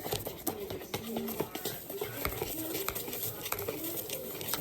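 Light clinks and taps of kitchen utensils against bowls and dishes, as during stirring or handling of batter, scattered irregularly.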